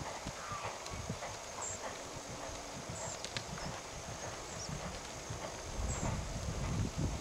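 A horse trotting on a sand arena surface: a steady run of soft, muffled hoofbeats.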